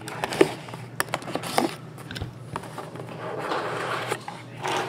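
Hands opening a cardboard trading-card box: a few sharp clicks and crinkles of plastic wrap, then a longer scraping rustle near the end as the lid is worked off.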